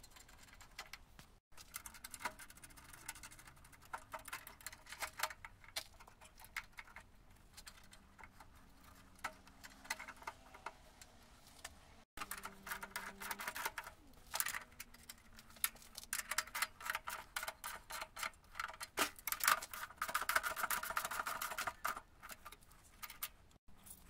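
Irregular light metallic clicks and clinks of parts and tools being handled on a moped's rear drum brake, with denser clicking about halfway through and again near the end.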